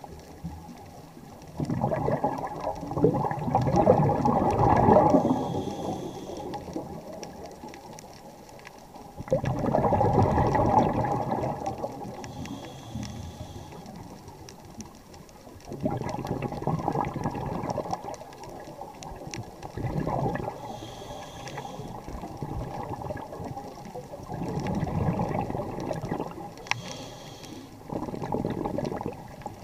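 Scuba diver breathing through a regulator underwater: a bubbling rush of exhaled air about six times, each lasting two to three seconds, with a short faint hiss between them.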